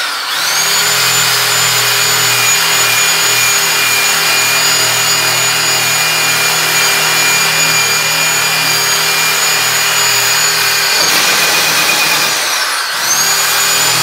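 Electric drill spinning a wire cup brush against rusted sheet-metal washing-machine body, scouring off the rust: a steady motor whine over a harsh scratch of steel wire on metal. The motor's pitch dips and climbs back right at the start, and again about a second before the end.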